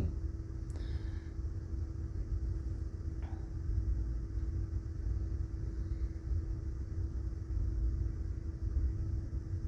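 Moving passenger train heard from inside the carriage: a steady low rumble with a constant hum running under it.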